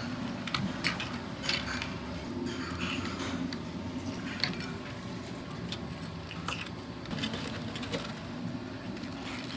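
Kitchen noise: a steady low hum with scattered clicks and knocks, like utensils and cookware being handled.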